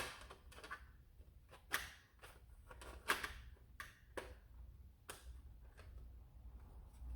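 Faint, scattered clicks and knocks of small kit parts being handled and tried in place, a few sharper taps about two, three and four seconds in.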